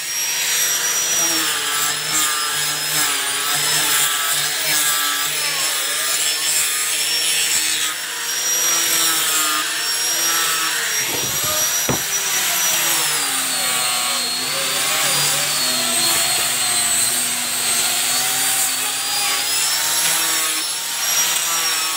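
Maktec hand grinder fitted with a 180-grit sanding disc, running and sanding teak wood, with a steady high motor whine over a scraping rub. The whine dips in pitch about halfway through and stays lower.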